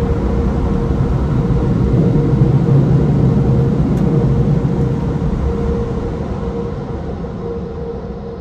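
Car wash tunnel dryer blowers, a steady loud rush with a hum through it, heard from inside the car. It fades over the last few seconds as the car leaves the tunnel exit.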